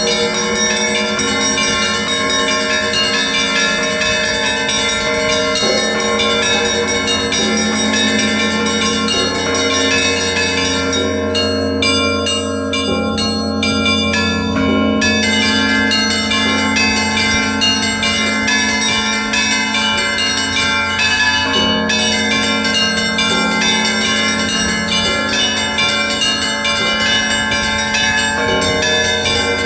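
Russian Orthodox monastery bells rung together: many bells of different sizes chiming over the steady hum of a deep bell. The highest small bells fall silent for a few seconds around the middle, then come back in.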